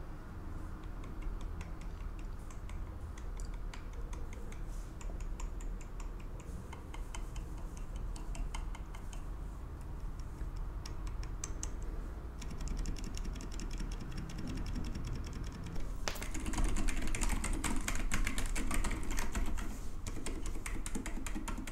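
Typing on a mechanical keyboard, a KBD75v2 fitted with Gazzew Boba U4 silent tactile switches: a steady run of keystrokes that turns faster and louder about three-quarters of the way through.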